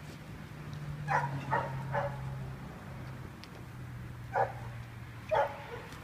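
Dog giving short, sharp barks: three in quick succession about a second in, then two more single barks later on.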